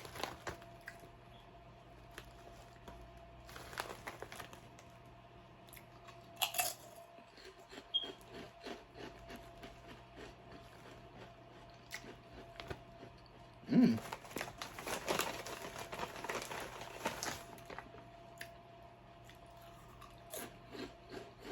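Potato chips crunched and chewed close to the microphone, with crinkling of the chip bag. There are scattered crunches, then a dense run of crunching about 14 to 17 seconds in, over a faint steady hum.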